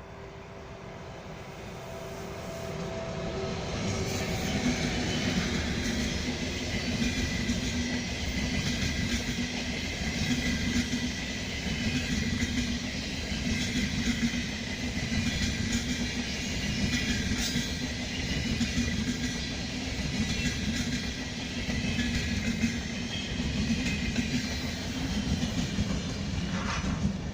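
A train approaching and then running past on the station tracks: the rumble of wheels on rails builds over the first few seconds, holds steady and loud for about twenty seconds, and drops away right at the end.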